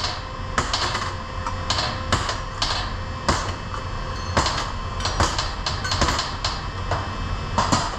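Old valve seat inserts, loosened by TIG-welding heat, being picked out of a John Deere cylinder head and set down on the bench: about a dozen irregular light clinks and clicks over a steady low hum.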